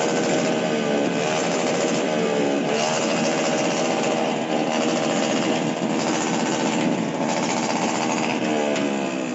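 New Year's noise-making: a continuous din of fast rattling and banging, with several horn-like tones bending up and down in pitch above it.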